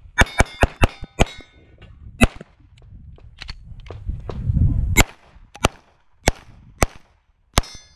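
Rapid pistol fire from an SPS Vista Star 9mm major Open-class race gun, about a dozen shots. The first five come in a fast burst within about a second, with a metallic ringing after them. The rest are single shots spaced half a second to a second apart.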